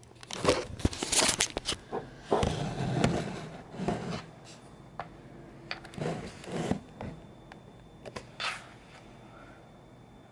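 Scraping, rubbing and rustling handling noises in irregular bursts, with a few sharp clicks.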